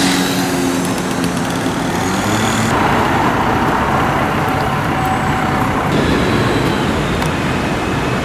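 City street traffic noise, with a motor vehicle passing and its engine pitch falling in the first second. The background noise changes abruptly twice.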